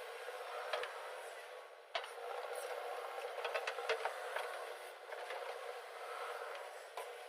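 Heavy earth-moving machinery running steadily, with sharp metallic knocks now and then, about a second in, at two seconds, several around four seconds, and one near the end.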